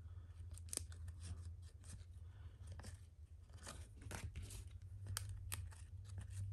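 A stack of 1994-95 NBA Jam Session trading cards being flipped through by hand. The glossy cards slide and scrape against each other, with faint, irregular clicks as cards that stick together are bent apart.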